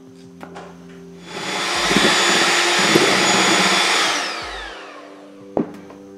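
Electric hand mixer beating chocolate cake batter in a glass bowl, a loud steady whirr with a high whine, for about three seconds from just after a second in, then switched off and winding down with a falling whine. A single sharp knock near the end.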